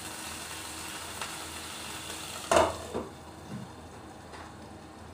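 Water sizzling in a hot frying pan around a bread pizza, splashed in to steam the cheese. About two and a half seconds in, a knock as the glass lid goes onto the pan, after which the sizzle is quieter and duller.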